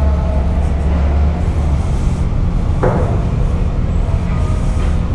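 Ferry machinery droning as a loud, steady low rumble in the enclosed vehicle deck, with a deeper hum that drops away after about a second. A short metallic clank or squeak comes about three seconds in.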